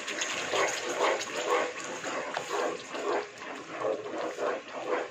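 Wooden spatula stirring thick butter chicken sauce into tomato puree in a nonstick pan: wet squelching, slapping strokes about two to three times a second.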